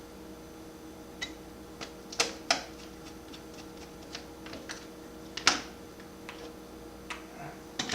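Irregular light clicks and taps of small plastic and metal laptop parts being handled and fitted, about nine in all, the loudest about two seconds in and again near the middle, over a faint steady electrical hum.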